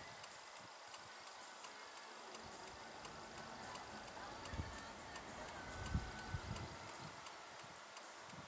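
Faint outdoor ambience with a regular light ticking throughout and a few low thumps around the middle, the loudest about six seconds in.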